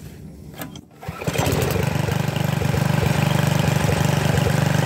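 Briggs & Stratton 190cc single-cylinder pressure washer engine started, catching about a second in and then running steadily with a fast, even firing beat.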